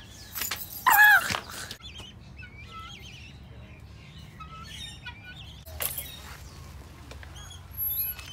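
Birds in an aviary chirping and whistling in short, high calls, with one loud, harsh call about a second in and a short run of high whistled notes near the end.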